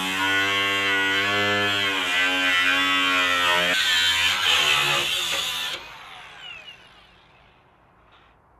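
Milwaukee cordless angle grinder with a cutoff wheel cutting through rusted sheet steel, a loud whine that wavers in pitch as the wheel bites. About six seconds in it is lifted off and winds down.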